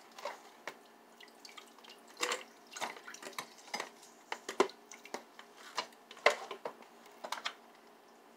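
Partly frozen homemade broth being emptied into a crock pot: irregular clinks, knocks and small drips and splashes, the loudest about two, four and a half and six seconds in.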